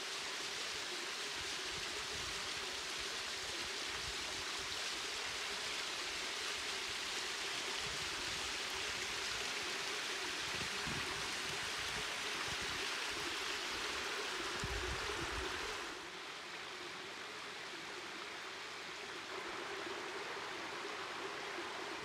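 Small waterfall pouring down a rock chute into a pool: a steady rushing, splashing hiss of falling water. It drops a little in level about two-thirds of the way through.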